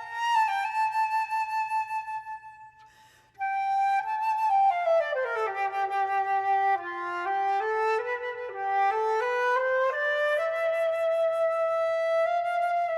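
Unaccompanied flute playing a slow melody: a held note that fades away, a short pause about three seconds in, then a line of notes stepping down into the low register and climbing back up to a long held note.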